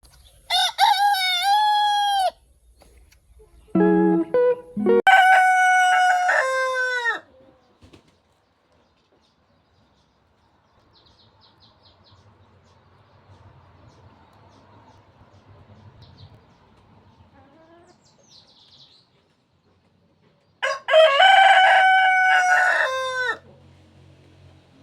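Rooster crowing three times, each crow about two seconds long and ending in a falling note: near the start, about five seconds in, and about twenty-one seconds in. Short, lower, choppy calls come just before the second crow, and faint bird chirps sound in the quiet stretch between crows.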